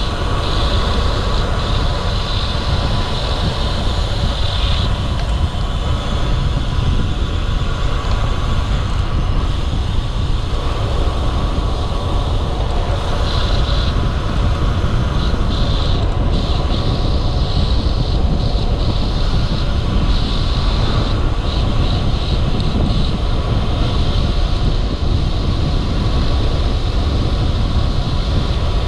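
Wind rumbling on the microphone of a bicycle-mounted camera, with road noise from a road bike riding along. There is a steady low rumble throughout, and a higher hiss comes and goes.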